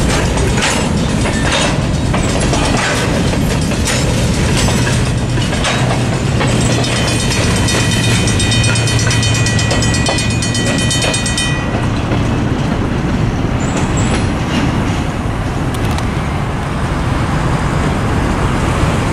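Freight train covered hopper cars rolling over a road crossing, wheels clacking over the rail joints, with a steady high squeal from about six seconds in. Both stop at about twelve seconds as the last car clears, leaving road traffic noise.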